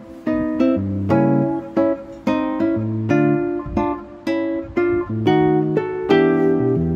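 Background music: an acoustic guitar strumming and plucking chords, a new chord about every half second.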